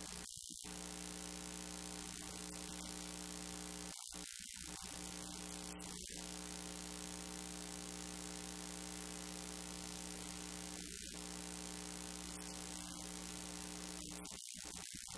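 Faint, steady droning hum made of several held tones that do not change.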